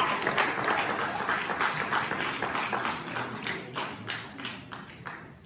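Audience applause dying away, thinning to a few scattered claps before it stops.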